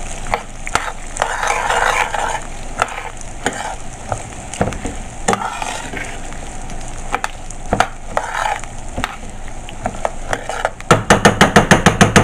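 A spoon stirring and scraping dry rice grains through hot oil in a stainless steel pan, with a light sizzle and scattered clicks of the spoon on the metal. Near the end comes a fast run of sharp strokes, several a second. The rice is being toasted in oil until golden brown.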